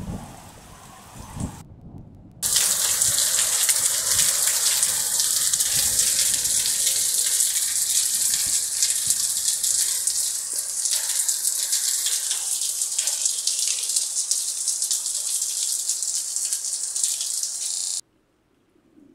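Heavy rain pouring down, a loud, even hiss that starts suddenly a couple of seconds in and cuts off abruptly near the end. A faint low rumble of thunder comes before it.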